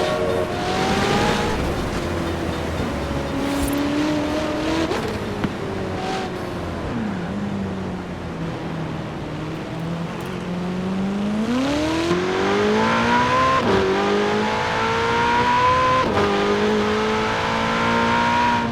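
Ferrari 488 Pista's twin-turbo V8 under way. The engine note eases off and holds low for the first half, then climbs hard through the gears, dropping sharply at each of about four quick upshifts before rising again.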